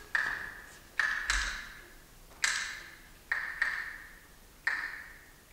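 Seven bell-like pings at one pitch, each struck sharply and ringing away over about a second, in an uneven rhythm with some coming in quick pairs.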